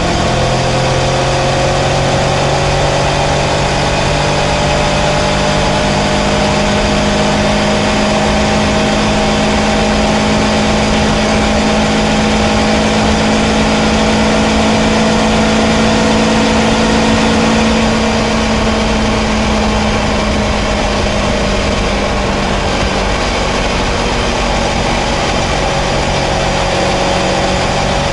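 Kawasaki Versys 650's parallel-twin engine running at a steady road cruise, revs climbing slightly in the first few seconds and easing off a little about eighteen seconds in, over a constant rush of wind and road noise.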